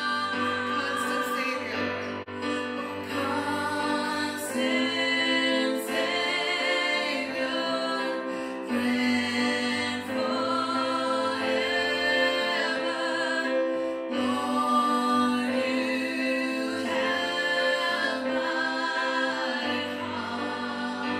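Female voices singing a slow worship song in long held phrases with vibrato, accompanied by chords on a Roland RD-700 stage piano.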